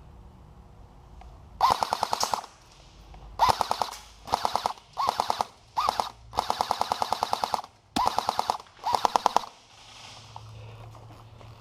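Airsoft gun firing about eight short full-auto bursts of rapid clicks, the longest about a second and a half, laying down fire to keep an opponent pinned.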